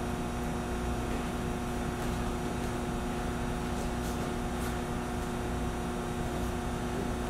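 Steady room hum, a machine drone with a few steady tones, typical of air conditioning or other building equipment. A couple of faint short ticks come about four seconds in.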